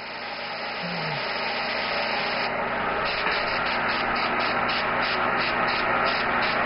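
Airbrush hissing steadily as it sprays white paint for a highlight, growing louder over the first couple of seconds and then holding, with a steady low hum underneath.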